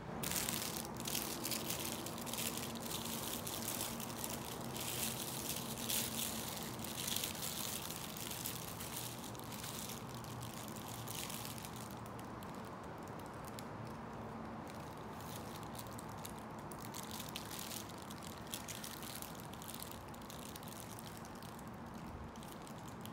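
Running water splashing, steady for about the first twelve seconds, then on and off.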